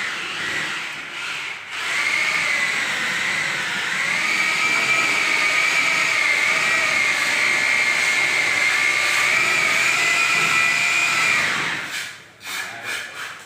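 Handheld electric power tool running under load with a steady high whine, its pitch rising a little about two and four seconds in, then cutting off near the end, followed by a few scattered knocks.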